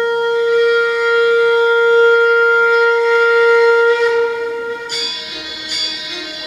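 Bollywood dance music played over loudspeakers: one long held note, steady in pitch, lasting about five seconds, then the beat comes in with percussion and other instruments near the end.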